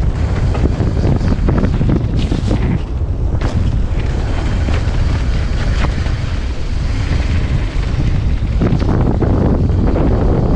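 Wind rushing over a mountain bike's camera microphone at speed, with tyres running on a dirt trail and many sharp rattles and knocks from the bike over bumps.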